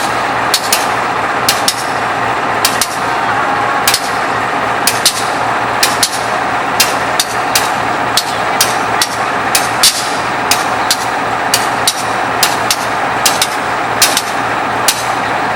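GE 7FDL diesel engine of a CC 201 locomotive idling: a steady, loud drone with a low hum. Sharp clicks or knocks come at irregular intervals over it, about two a second.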